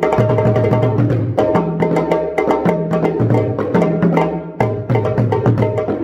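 A freshly reheaded djembe played by hand in quick, dense strokes, with stick-beaten bass drums laying a repeating low two-note pattern underneath: an interlocking West African drum rhythm.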